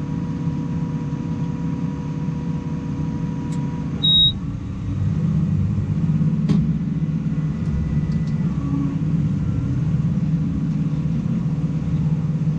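New Holland T7 tractor running steadily while pulling a Lely round baler, a continuous low rumble. A short, loud high-pitched beep sounds about four seconds in.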